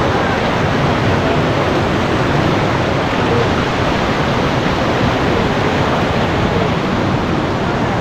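Waterfall rushing: a loud, steady wash of falling water.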